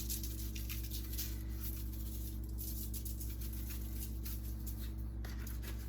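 Light, rapid pattering and rustling of seasoning being shaken from a shaker onto raw tilapia fillets, over a steady low electrical hum.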